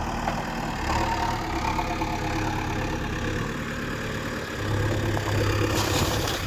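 Heavy diesel engine of a backhoe loader or truck running steadily, growing louder about two-thirds of the way through, with a short hiss near the end.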